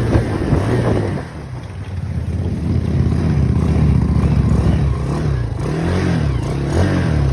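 Off-road vehicle engine revving up and down in several waves, with a dip in level about a second in.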